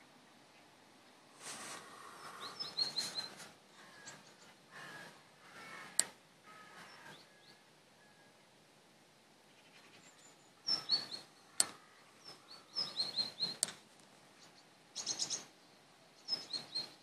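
Small birds chirping in scattered bursts of quick, high chirps, with a few sharp clicks in between.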